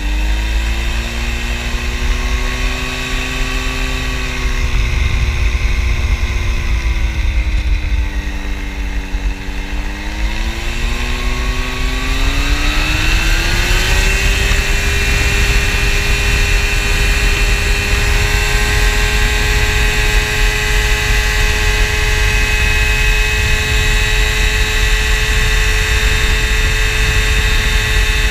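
Phantom X1 ultralight aircraft engine and propeller at low, varying rpm while taxiing, then throttled up steeply about twelve seconds in to a steady high-rpm run for the takeoff roll on a grass strip.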